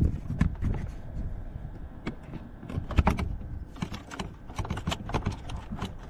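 Irregular plastic clicks and knocks of hands working the starter relay loose from a 2017 Ford Escape's under-hood fuse box, over a low rumble.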